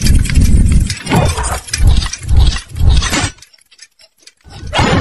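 Logo-intro sound effects: a run of heavy booming hits with glassy, metallic crashes, about two a second, stopping about three and a half seconds in. A few faint ticks follow, then one more hit near the end.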